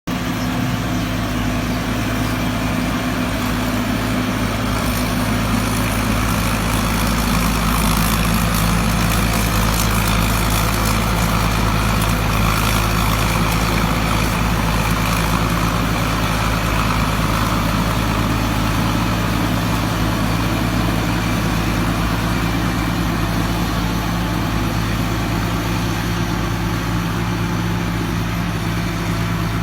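Combine harvester running steadily: an engine's continuous low drone under a broad mechanical rush.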